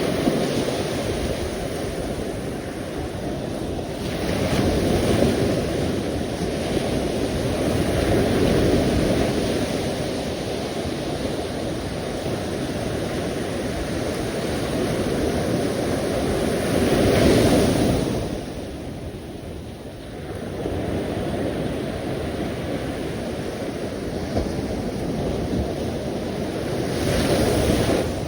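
Sea waves rushing in and washing back, as a continuous surf that swells and ebbs. The loudest surge comes a little past halfway, with others about five and eight seconds in and near the end.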